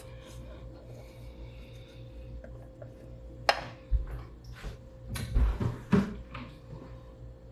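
Food items and containers being handled and set down in a refrigerator: a sharp knock about three and a half seconds in, then a dull thump and a run of knocks and rubbing near the end, over a steady low hum.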